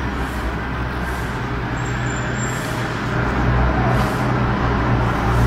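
Steady low rumbling background noise, a little louder from about halfway through.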